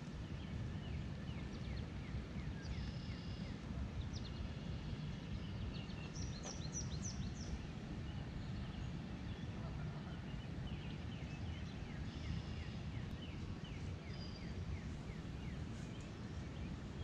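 Songbirds chirping and singing, many short repeated calls, over a steady low rumble.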